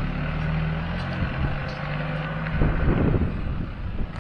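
A ute's engine pulling out of a driveway and driving off along the road, with a steady low hum that shifts about a second in and again past the middle. Wind buffets the microphone.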